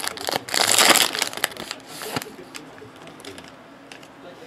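Foil wrapper of a trading card pack crinkling loudly as it is torn open and peeled off the cards, dying away after about a second and a half into a few faint clicks of the cards being handled.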